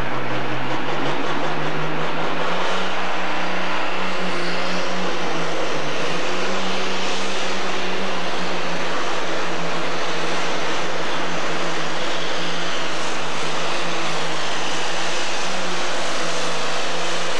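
Pro stock pulling tractor's turbocharged diesel engine running flat out under load as it drags the sled. It is loud and steady, its pitch climbing over the first couple of seconds and then holding.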